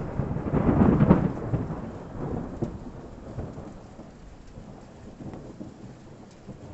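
Thunder: a sharp clap right at the start rolls into a low rumble that peaks about a second in and fades away over the next few seconds. Rain falls steadily throughout.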